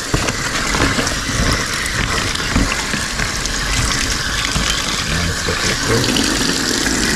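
Tap water running into a stainless steel sink, splashing over cut potato pieces as they are rubbed and rinsed by hand in a plastic container.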